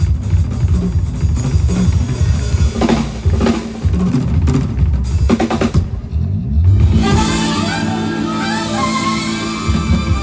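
Music with a drum kit playing busily, bass drum and snare prominent. About seven seconds in, the drums drop out and a held low note carries a melody with sliding notes.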